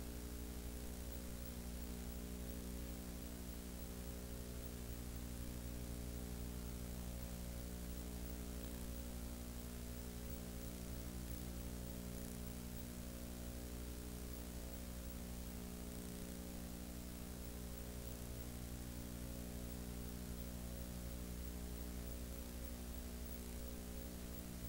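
Steady electrical mains hum with a faint hiss, a low buzz made of several even tones that does not change.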